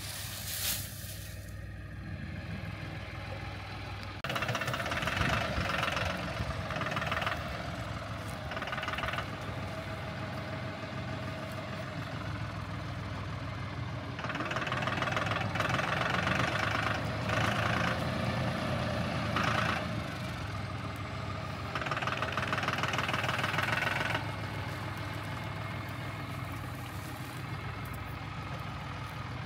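Massey Ferguson diesel tractor engine running steadily while its front loader dumps compost, growing louder in several spells of a few seconds as the loader works. In the first second there is a rush of compost tipping out of the bucket.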